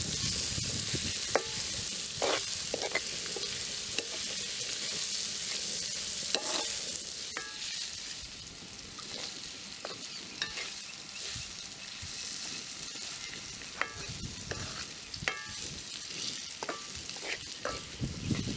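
Moringa drumstick pieces sizzling in a blackened wok, stirred with a coconut-shell spoon that scrapes and knocks against the pan every second or so. The sizzle eases off a little about halfway through.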